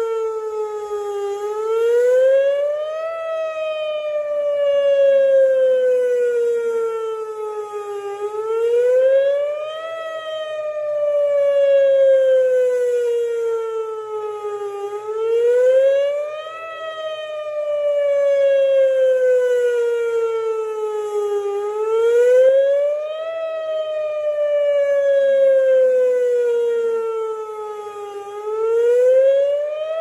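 Whelen WPS 2910 electronic outdoor warning siren sounding its wail during a scheduled siren test. The pitch rises quickly, then falls slowly, repeating about every seven seconds. Each rise swells louder at its top.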